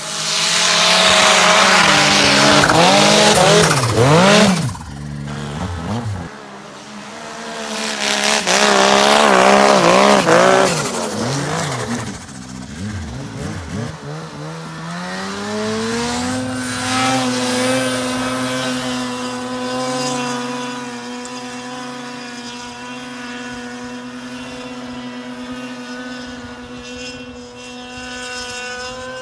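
Snowmobile engines revving hard in two bursts, pitch swinging up and down as the riders work the throttle. After a short rise about halfway through, a sled holds steady high revs to the end while climbing a slope.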